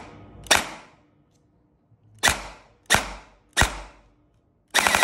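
Electric gel blaster gearbox controlled by a Kestrel V3 Basic MOSFET cycling as the trigger is pulled: a sharp mechanical snap with a short whirring tail about half a second in, three more a little after two seconds, and a longer, rattling cycle near the end. The trigger pulls are setting the gearbox's pre-cocking level.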